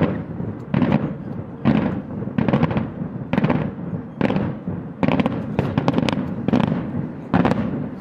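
Daytime fireworks salutes: aerial bomb shells bursting in loud sharp bangs, about one a second, some breaking into quick clusters of cracks, each trailing off in an echo.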